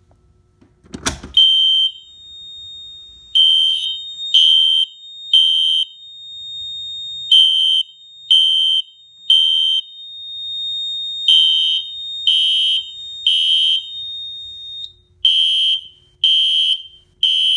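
A pull station clacks as it is pulled, about a second in. Then a System Sensor horn strobe sounds the temporal evacuation pattern: three loud high horn blasts, a pause, and again, four rounds. A steady high beep from the fire alarm panel's piezo runs beneath the horn and cuts off about 15 seconds in.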